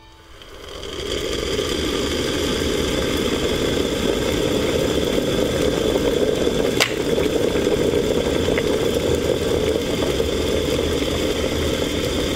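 Steady rushing noise of water heating in a kettle, fading in over the first second or so, with one sharp click about seven seconds in.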